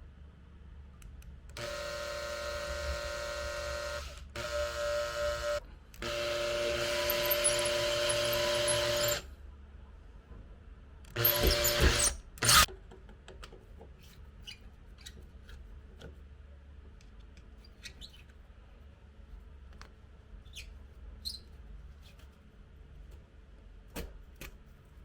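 Electric drill motor running in three bursts of a few seconds each, a steady whine, the last one louder. About halfway through comes a second's harsher, noisier burst and a sharp click, then a few scattered light clicks and taps.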